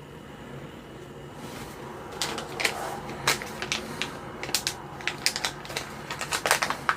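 Irregular sharp clicks and taps of small parts and hand tools being handled on a workbench, starting after a second or so, over a steady low hum.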